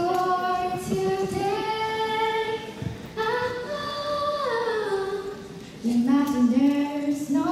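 A girl singing solo, holding long notes one after another, with a slow downward slide between notes about halfway through.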